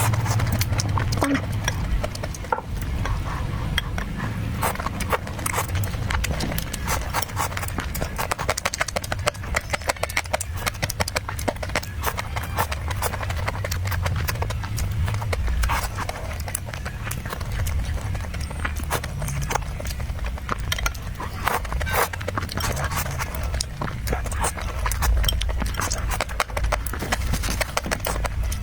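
Close-miked eating sounds: chewing and lip-smacking, a dense run of quick wet mouth clicks with no pause.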